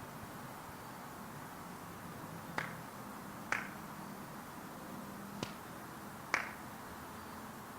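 Four sharp finger snaps at uneven intervals over a faint low hum.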